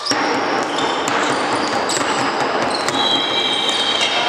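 Noise of a handball game in a large echoing sports hall, with the ball bouncing on the wooden court floor; a steady high tone comes in about three seconds in.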